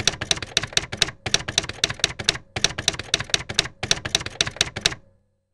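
Typewriter keystrokes, a sound effect for title text typing on letter by letter: sharp clacks about four or five a second, in short runs with brief pauses between them, stopping about five seconds in.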